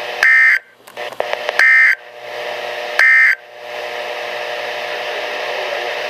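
Midland weather radio sounding the EAS/SAME end-of-message code: three short, buzzy digital data bursts about a second and a half apart, with a steady radio hiss between and after them. The bursts mark the end of the tornado warning broadcast.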